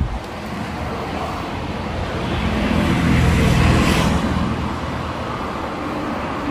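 A motor vehicle rumbling past, swelling about three seconds in and then fading, after a thump at the start.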